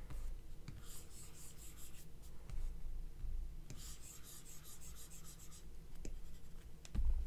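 Apple Pencil tip rubbing across an iPad Pro's glass screen as strokes are drawn: soft scratchy rubbing in two spells of about a second each, with a few light taps, over a low steady hum.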